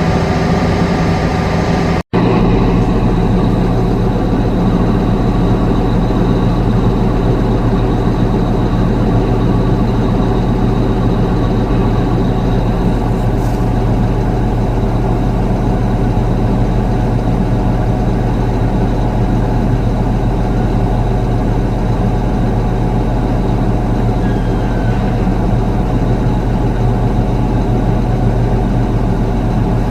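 Heavy harvest machinery's diesel engine running steadily at a constant speed, with a brief gap about two seconds in.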